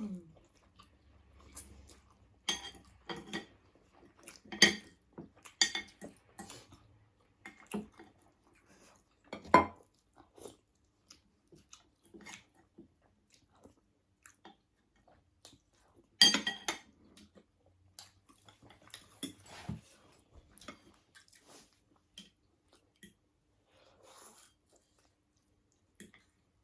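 Close-up eating sounds: chewing and bites of a ramen, sausage and salad meal, with scattered clicks of utensils against bowls. Two louder clacks stand out, about nine and sixteen seconds in.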